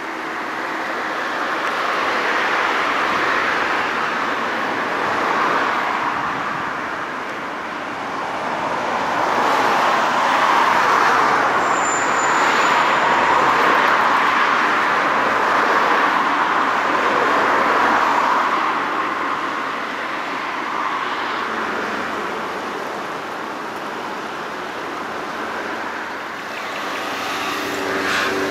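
Road traffic passing close by: a rushing tyre and engine noise that swells and fades several times, loudest through the middle stretch.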